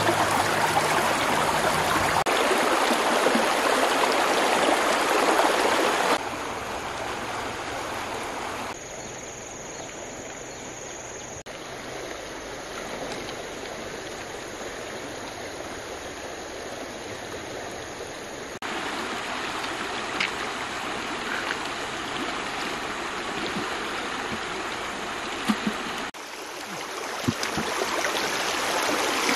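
Shallow river water running and burbling over stones, louder and softer from shot to shot. A few short, sharp sounds stand out near the end.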